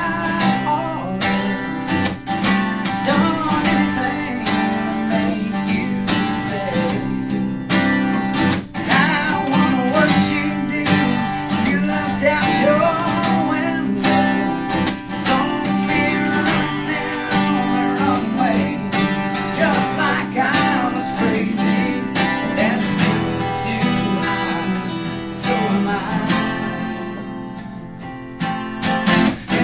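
Country band playing live, led by strummed acoustic guitar, with a voice singing over it. The music turns briefly softer near the end, then comes back up.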